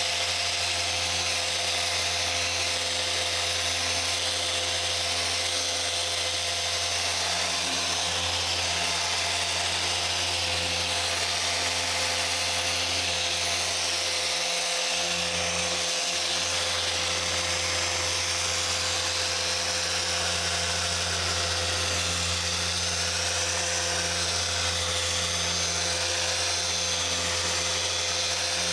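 Small mini polisher running steadily on car paint during paint correction, a constant buzzing hum that dips briefly about halfway through.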